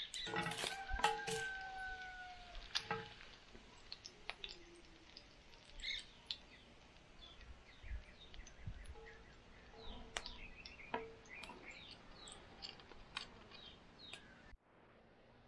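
Bacon frying in a cast iron skillet with a steady sizzle, while metal tongs clink and scrape against the pan; the first few clinks ring briefly. Birds chirp in the background, and the sound cuts off sharply just before the end.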